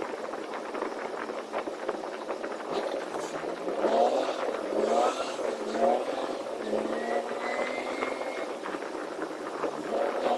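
Semi-truck engine running with road noise and rattles, heard from inside the cab. The engine note rises several times in short steps from about four seconds in.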